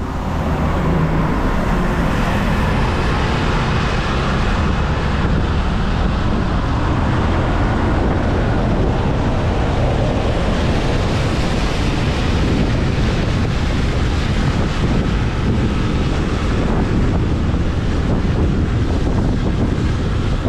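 Steady wind rushing over the microphone of a moving motorbike, with the engine and road noise underneath.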